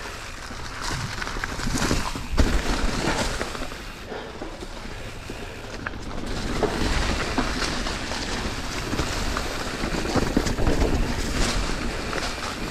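Mountain bike riding fast down a leaf-covered dirt trail: tyres rolling and crackling over dry leaves, wind rushing on the microphone, and the bike clattering over bumps, with heavier thumps about two and a half seconds and seven seconds in.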